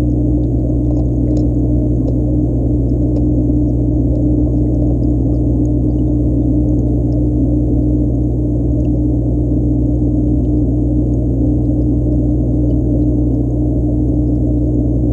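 Steady, muffled low hum with one strong droning tone.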